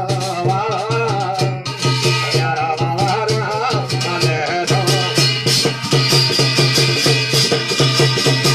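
Garhwali jagar devotional music: a man's voice singing a wavering melody over fast, evenly beaten percussion. About halfway through, the voice drops out and the percussion carries on alone.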